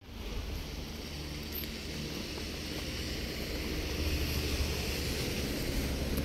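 A steady low rumble with a hiss over it, growing slightly louder, with no distinct events.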